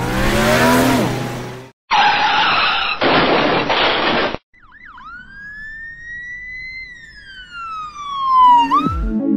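Intro sound effects over title cards: a noisy whoosh with a falling tone, two loud blasts of hiss, then a single siren-like wail that rises slowly and falls away. Electronic music with deep, dropping bass notes starts near the end.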